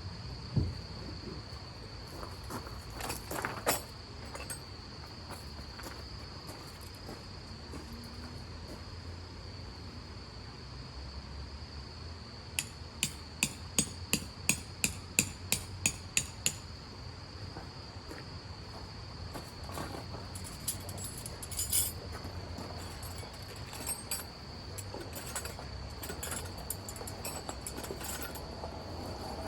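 Steady high insect trill throughout, with a run of about a dozen sharp strikes, about three a second, near the middle, like a hammer driving a tent peg. A few scattered knocks and rustles come before and after.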